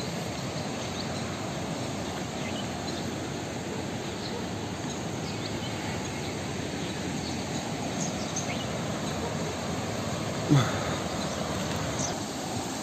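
Steady rushing of a mountain river over rocks, with scattered faint bird chirps and a brief thump about ten and a half seconds in.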